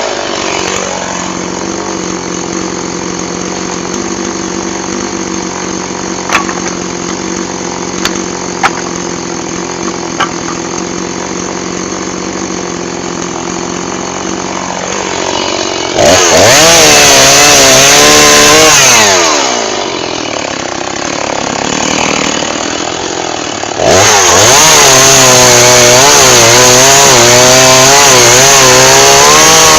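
Two-stroke chainsaw dropping to idle, idling steadily with a few sharp clicks, then throttled up hard about halfway through, its pitch wavering under load as it cuts wood. It falls back to idle for a few seconds and is opened up to cut again near the end.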